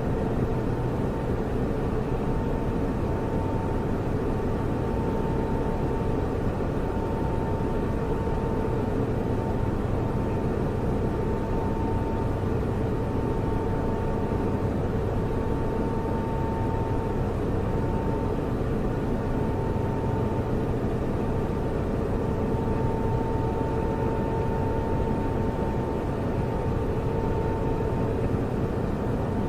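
Steady whirring hum of running computer servers, with a constant low drone and a faint steady whine that hold without change.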